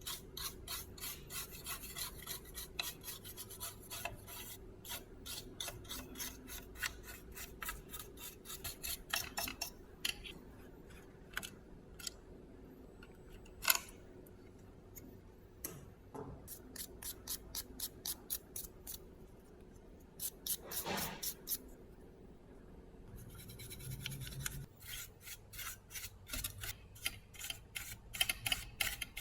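Fast back-and-forth abrasive rubbing by hand, about four strokes a second, in runs broken by short pauses. One sharp click comes about halfway through.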